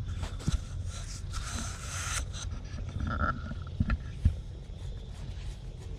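A cat's fur brushing and rubbing against the camera: a rustling scrape for a couple of seconds, then a few soft knocks, over a low steady rumble.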